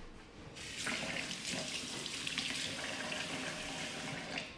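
Kitchen sink tap running as a cloth is wetted under it; the water starts about half a second in and is shut off near the end.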